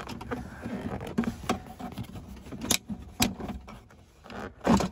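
Plastic center-console trim in a car interior being pulled loose by hand: rustling and scraping with several sharp clicks and knocks as the press-fit clips let go, and a louder knock near the end.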